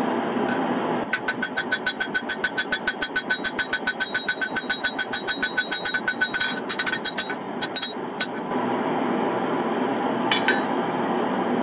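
Hand hammer striking a hot katana blade on a steel anvil in a quick, even run of blows for about five seconds, the anvil ringing with each one, then a few scattered blows before it stops. This is the beveling stage of forging the blade. A steady roar of shop machinery runs underneath.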